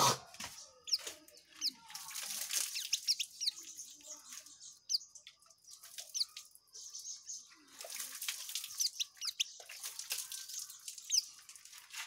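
White-eye (pleci) singing a fast, chattering ngekek song: clusters of very high, quick sliding notes with short pauses between them. A short thump right at the start.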